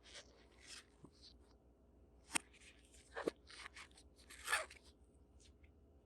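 Hands handling a smartphone's cardboard box and packaging: a string of short rustles, crinkles and sharp clicks, the loudest about two and a half and four and a half seconds in.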